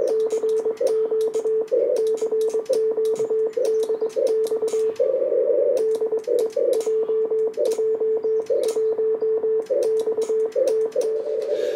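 Kenwood TS-890 transceiver sending Morse code (a CQ call): a steady mid-pitched sidetone keyed on and off into dots and dashes, with sharp clicks alongside the keying. In the gaps, band noise hisses through the narrow CW filter.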